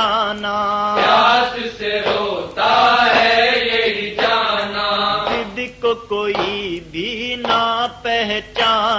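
Male reciter chanting a noha, an Urdu Shia lament, in long melismatic phrases over a steady low drone.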